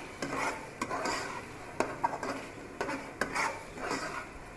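Metal spoon stirring chopped tomato masala in a stainless steel pot: repeated scraping strokes with sharp clinks as the spoon hits the pan, about once a second.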